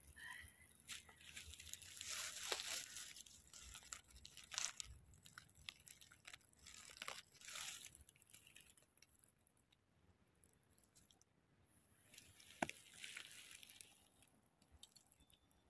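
Faint crunching and rustling of dry fallen leaves in bursts as a porcini mushroom is pulled from the leaf litter and handled, with one sharp snap about three-quarters of the way through.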